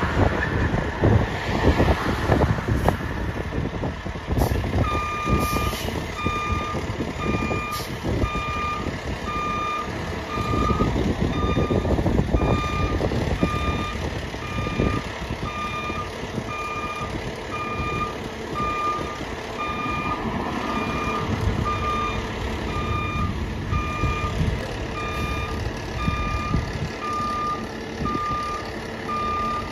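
Aerial ladder fire truck's backup alarm beeping at about one beep a second, starting about five seconds in, over the low rumble of its engine.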